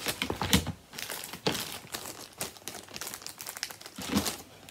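Plastic packaging crinkling and rustling as it is handled, in irregular bursts, loudest about half a second in and again near the end.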